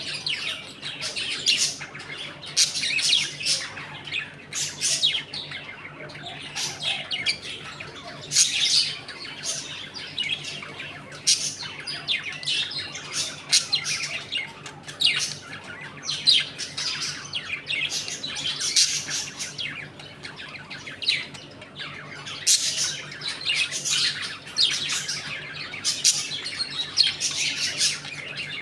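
A colony of budgerigars chattering, with many short overlapping chirps and warbles that come thick and fast throughout, now louder, now softer.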